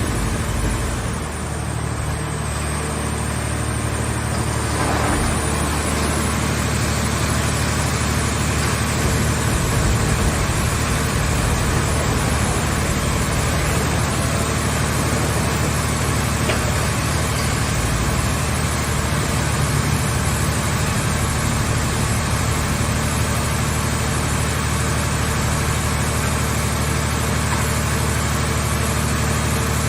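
Engine of a towable hydraulic car-shell scrap baler running steadily at a constant speed.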